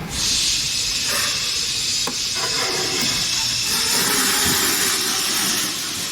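A steady high-pitched hiss that starts suddenly and dies away near the end, with a faint click about two seconds in.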